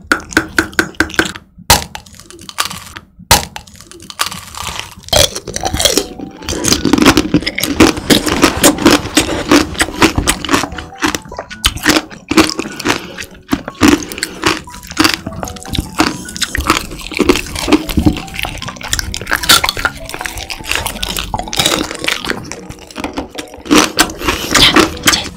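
Close-miked eating: the hard candy shell of sugar-coated strawberry skewers (tanghulu) cracking and crunching between the teeth, with wet chewing, in dense sharp crackles throughout.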